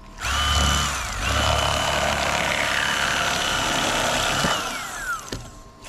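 Electric fillet knife running as a fish is filleted: a short burst, a brief break about a second in, then about three more seconds of a steady high motor whine that falls in pitch as it winds down near the end.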